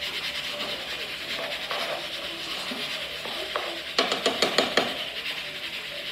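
Metal spoon stirring rice in an aluminium pot, scraping and knocking against the pot, with a quick run of about seven clacks about four seconds in.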